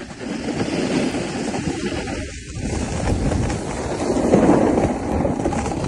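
Wind buffeting a phone microphone during a downhill ski run, mixed with the hiss of skis sliding over groomed snow. It eases briefly about two seconds in.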